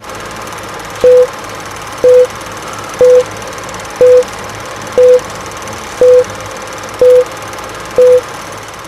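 Film countdown leader sound effect: a steady crackly hiss with a short, loud, mid-pitched beep once a second, eight beeps in all, each starting with a click.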